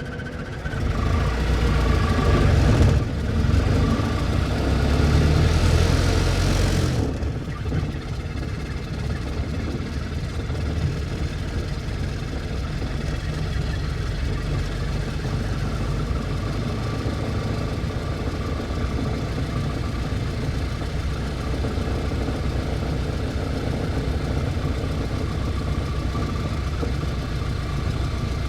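1924 Ford Model T's four-cylinder engine running louder, revved, for about six seconds with a short dip in the middle, then dropping back to a steady idle.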